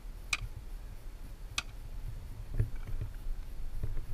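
Firefighter handling a portable ground monitor nozzle: two sharp clicks about a second and a quarter apart, then a few soft thuds, over a low steady rumble.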